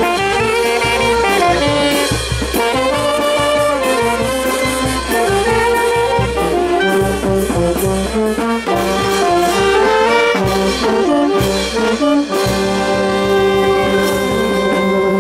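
Brass band of saxophones, trumpets and trombones with drums playing a lively dance tune. It ends on a long held chord over the last couple of seconds, then cuts off.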